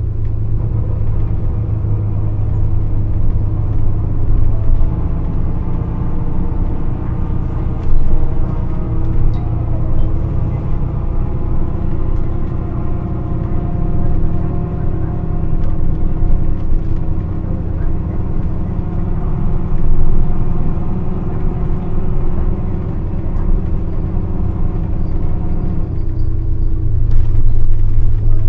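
Nissan Diesel KC-RM211GSN mid-size city bus driving, its FE6E diesel engine running steadily with the pitch stepping up and down a few times. This bus is known for an abnormally loud running noise.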